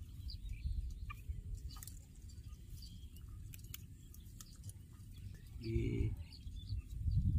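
Outdoor paddy-field ambience: a fluctuating low rumble with faint, scattered bird chirps. A short, low pitched call comes about six seconds in.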